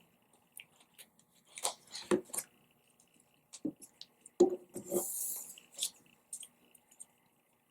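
Stickers being peeled from a backing sheet and pressed onto a paper card: scattered small taps and crinkles, with a brief papery rasp about five seconds in.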